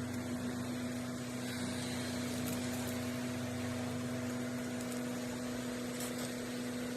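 A steady mechanical hum with a constant low tone over a faint noise, holding even throughout.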